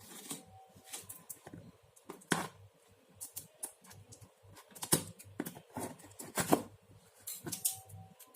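Sticker seal on a cardboard pen-tablet box being picked at and broken, with the box handled: irregular scratching and clicking, the sharpest clicks about two, five and six and a half seconds in.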